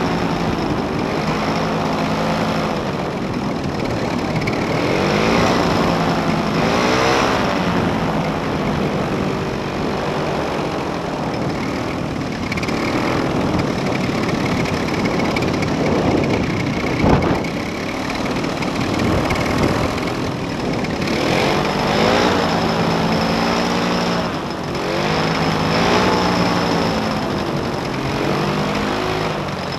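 Paramotor engine and propeller running behind the seat, its pitch rising and falling again and again as the throttle is worked while coming in to land. A single sharp knock about 17 seconds in.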